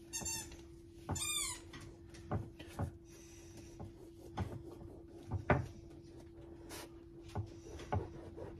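Small Yorkie-Bichon puppy giving two short, high-pitched squeaky whines in the first second and a half. Scattered light knocks and clicks follow over a steady low hum.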